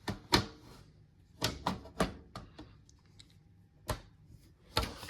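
Irregular sharp clicks and knocks of hard objects being handled, about ten in five seconds.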